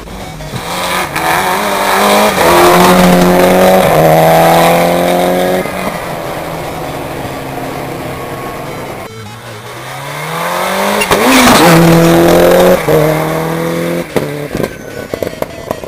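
Two rally cars pass at speed, one after the other, their engines revving hard through gear changes. The first pass is loud from about two seconds in. The second car's engine climbs in pitch after about nine seconds and passes loudly soon after.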